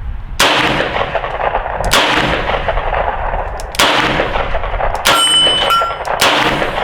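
Four revolver shots fired singly, about two seconds apart.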